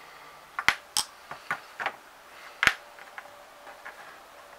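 A string of sharp metallic clicks and knocks as small tools and metal parts are picked up and set down on a workbench while a butane soldering iron's tip is being changed. The two loudest knocks come under a second in and again nearly three seconds in.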